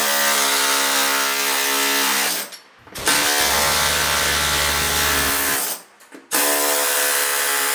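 Pneumatic air chisel (a medium-barrel air impact hammer) with a long sharpened chisel bit, hammering rapidly as it shears the heads off the rivets that hold a school bus ceiling panel. It runs in three loud bursts, stopping briefly about two and a half seconds in and again about six seconds in.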